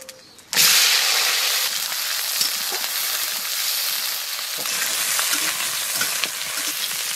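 Sliced onions and tomatoes hitting hot mustard oil in a kadai, starting to sizzle loudly about half a second in. They then fry steadily while a spatula stirs them.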